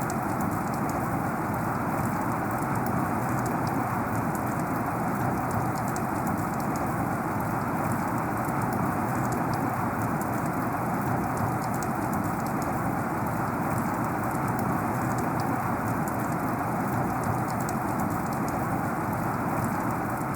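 Heavy rain falling steadily, a dense even hiss with many individual drops ticking through it.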